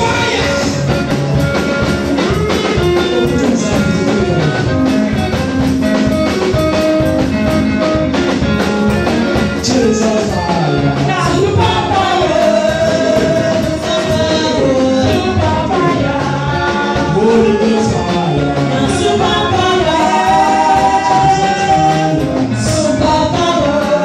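Music with singing over a steady beat, with guitar-like instruments.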